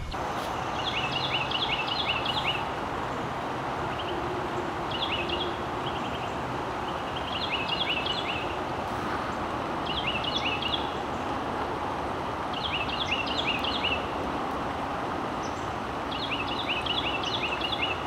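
Carolina wren singing: six phrases, each a quick run of repeated ringing notes, about every two to three seconds, the song this bird seems to use to claim its territory. A steady rushing noise runs underneath.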